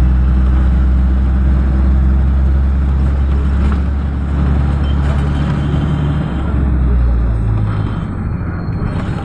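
A moving road vehicle's engine drones steadily over road and traffic noise. The low drone eases off about three-quarters of the way through.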